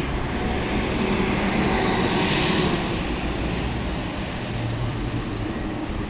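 Coach with a Volvo B11R diesel engine driving past and away, engine and tyre noise swelling about two seconds in and then easing as it pulls off, amid steady road traffic.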